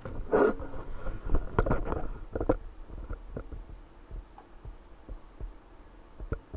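Computer mouse buttons clicking in an irregular run with low knocks against the desk, loudest and thickest in the first two seconds or so, then thinning to scattered fainter clicks.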